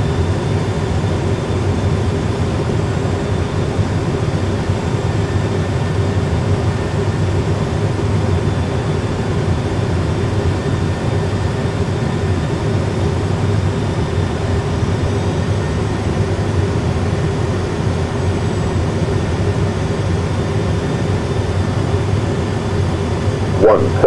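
Steady cockpit rumble and hum of an Airbus A320 full flight simulator, its sound system playing engine and airflow noise on an approach with one engine out. A short burst of voice breaks in near the end.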